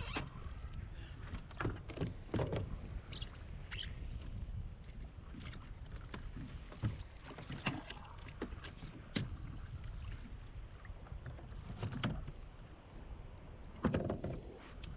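Steady low rush of wind and sea water around a fishing kayak, with scattered knocks and clicks from fishing gear being handled against the hull. A stronger knock comes near the end.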